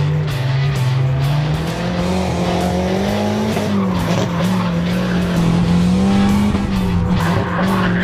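Turbocharged Nissan 240SX drift car running hard, its engine note rising and falling as the throttle is worked, with tires squealing. The tire squeal gets louder about seven seconds in.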